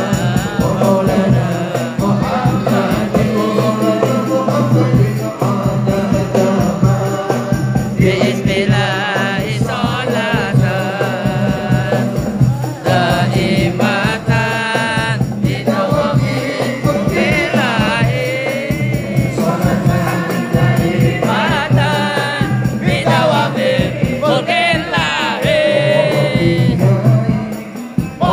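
Sholawat, an Islamic devotional song, sung by a lead voice and a chorus over fast, dense hand-drum percussion with jingling rattles.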